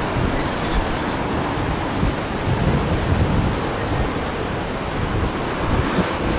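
Tropical-storm wind blowing hard across the microphone: a steady rushing noise with heavy, uneven low buffeting.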